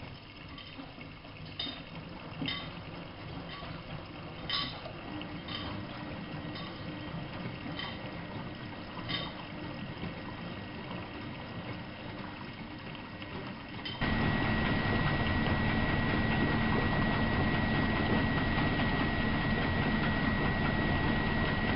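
Miele Novo Super W933 washing machine running with water sloshing and trickling and a few scattered drips. About two-thirds of the way through, a louder steady mechanical hum with a high whine starts abruptly.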